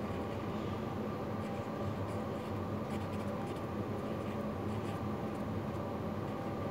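Fine-tip felt pen drawing on paper: faint, short scratching strokes over a steady background hum.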